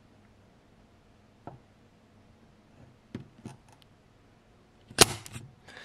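Spring-loaded desoldering pump (solder sucker) firing once about five seconds in: a sharp snap as the plunger releases and sucks molten solder off a through-hole pin, followed by a few small rattling clicks. A few faint clicks come before it.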